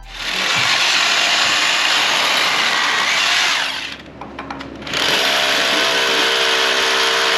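Power drill boring the anchor bolt holes for the hoist posts into the shop floor. It runs in two long stretches with a pause of about a second in the middle.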